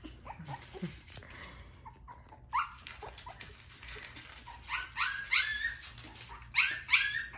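Young Shiba Inu puppies whining and yipping in short, high-pitched cries. There is one cry a little over two seconds in, then clusters of cries in the second half.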